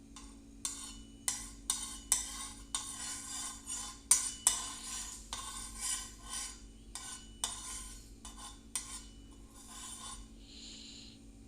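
A utensil scraping and stirring chopped vegetables (onion, corn, capsicum, tomato) around a fry pan, in irregular strokes that stop about a second before the end.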